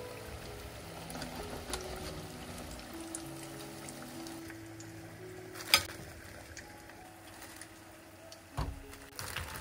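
Breaded potato cubes deep-frying in a pan of hot oil, a steady bubbling sizzle under soft background music. A sharp click comes a little past halfway, and a knock near the end.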